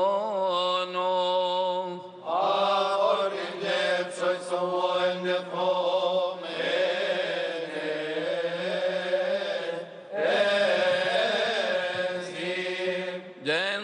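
Coptic Orthodox deacons' choir of men chanting a liturgical hymn, drawing long held notes out in slow ornamented runs. The chant breaks off briefly for a breath about two seconds in and again about ten seconds in.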